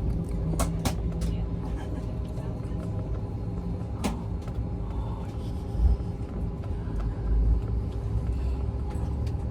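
Steady low rumble and hum inside an airliner cabin on the ground before takeoff, with faint steady tones over it. A few sharp clicks come near the start and again about four seconds in.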